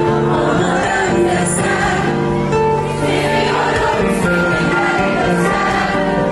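Music with several voices singing together over instruments, loud and continuous.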